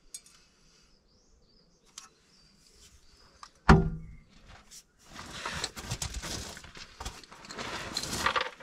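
A single sharp knock about a third of the way in, followed by a few seconds of irregular scraping and rustling.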